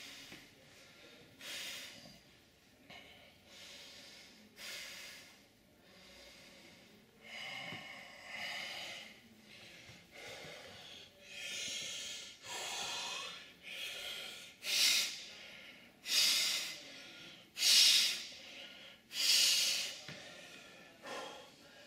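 A man breathing hard with sharp, forceful exhales while working with kettlebells during a conditioning circuit, a sign of heavy exertion. The exhales are faint and spaced out at first, then grow louder and come about every second and a half in the second half.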